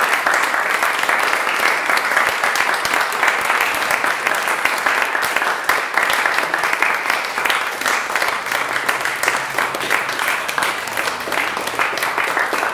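Audience applauding, a steady, dense clapping that does not let up.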